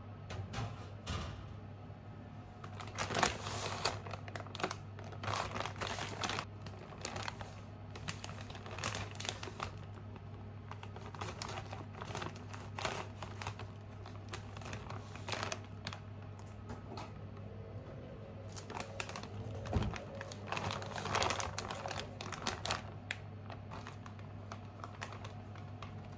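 Plastic bag of chicken karaage crinkling and rustling as it is opened and handled, with many irregular clicks and crackles, over a steady low hum.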